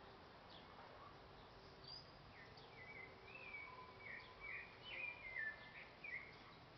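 Faint birdsong: a run of short chirps and whistled notes over a quiet background hiss, busiest in the second half.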